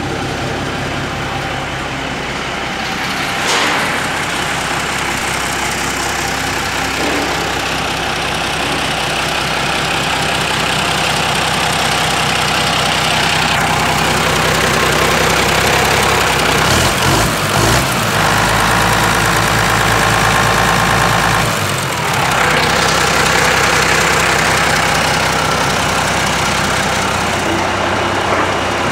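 Freshly overhauled Komatsu SAA6D140 six-cylinder turbocharged diesel engine of a WA500-3 wheel loader running steadily. Its note shifts for a few seconds a little past the middle, then settles back.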